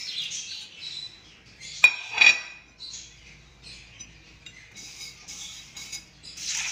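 Dry split lentils trickle from a ceramic plate into a glass bowl, then two sharp clinks of china and glass about two seconds in. After that comes the light, scattered rustle of fingers stirring the dry lentils in the glass bowl.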